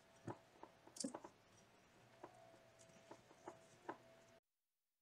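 Soft scattered taps and scrapes of a spatula working softened butter and brown sugar together in a mixing bowl. There are several light strokes, and the sound cuts off abruptly near the end.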